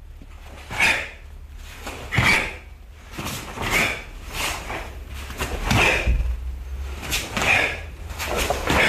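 A cotton karate gi snapping and swishing with each block and punch of Heian Shodan performed at full speed: a sharp, unpitched burst about once a second.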